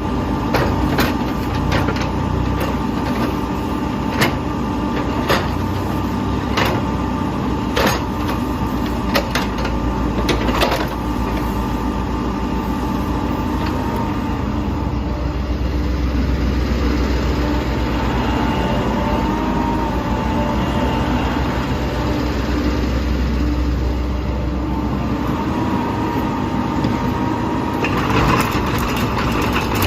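Caterpillar 306E mini excavator's diesel engine running steadily, with a thin whine over it. Sharp knocks come about once a second during the first ten seconds or so, and the low engine sound grows stronger from about halfway through until near the end.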